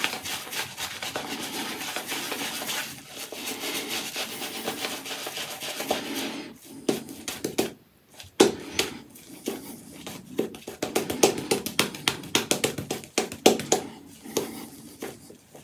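Apshave Cashmere 28 mm shaving brush working wet shaving-soap lather on a bearded face during face lathering: a steady swishing rub, turning about halfway through into a fast run of little clicks and pops as the lather is worked in.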